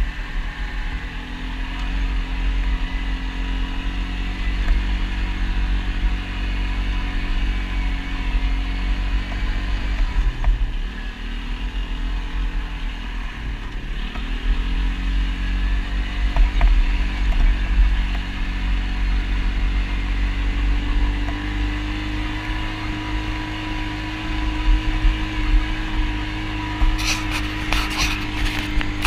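ATV engine running steadily while riding, its pitch dropping and climbing back twice, about ten and fourteen seconds in. A few sharp clicks or knocks near the end.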